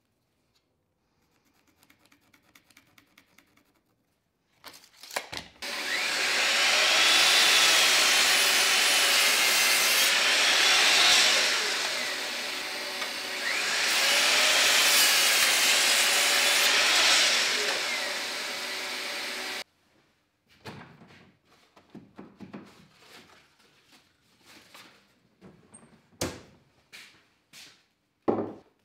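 Bosch sliding mitre saw running and making two crosscuts through a small piece of wood, its tone sagging and recovering with each cut, then cutting off suddenly. Faint pencil scratching comes before it, and scattered knocks and clicks of wood being handled follow.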